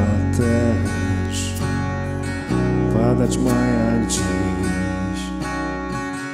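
Slow acoustic-guitar song playing: strummed acoustic guitar over sustained bass notes, with light rattle hits. The bass note changes about two and a half seconds in.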